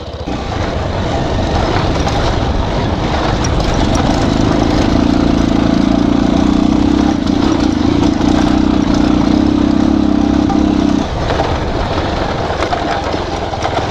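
Bajaj Pulsar 220 motorcycle's single-cylinder engine running as the bike is ridden on a dirt track. About four seconds in the engine note rises and holds steady, then drops back about eleven seconds in.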